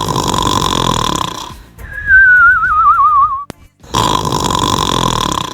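Cartoon-style snoring: a rasping snore on the in-breath, then a warbling whistle that slides down in pitch on the out-breath, then another rasping snore near the end.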